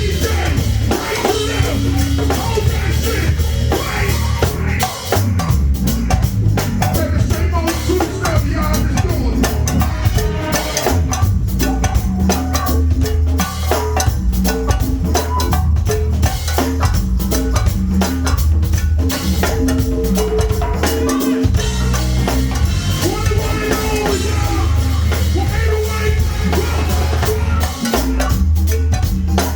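Go-go band playing a driving groove, with a drum kit and percussion over a heavy, steady bass line.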